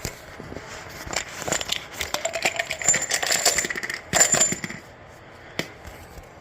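Metal hand tools and small metal parts clinking and clicking during hands-on work on a scooter's rear axle hardware, a busy run of quick metallic clicks with some ringing that stops about three-quarters through, then one sharp click.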